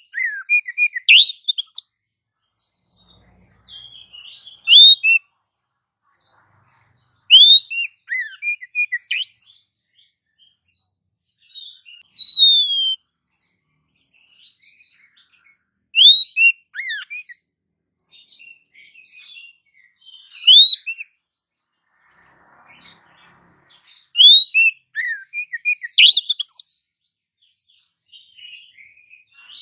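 Songbird calls from a bird-trapping lure track: loud, sharp chirps and quick whistled glides come every few seconds over a busy background of fainter chirping.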